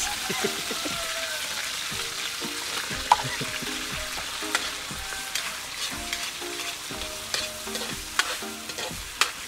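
Food sizzling in hot oil in a metal wok while a metal ladle stirs and scrapes it, with scattered sharp clicks of the ladle against the pan, the sharpest about three seconds in.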